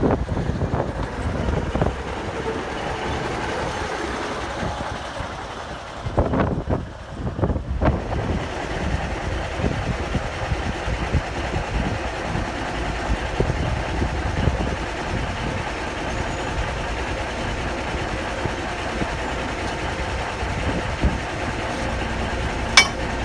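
Narrow-gauge diesel locomotive, the Ffestiniog Railway's 'Vale of Ffestiniog', running with a steady low engine rumble while it is set back slowly onto a carriage for coupling. A single sharp metallic clank comes right at the end.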